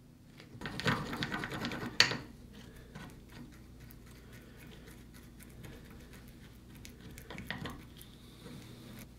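Wood glue squeezed from a plastic squeeze bottle into a drilled hole in a wooden table leg, with a crackling sputter for about a second and a half that ends in a sharp click. It is followed by faint scratching and ticking as a thin stick spreads the glue around inside the hole, with a short crackle near the end.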